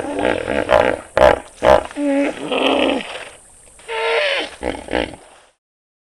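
Wild African bushveld animal calls: a series of short pitched calls, several sliding up or down in pitch, with a few sharp clicks between them, cutting off abruptly about five and a half seconds in.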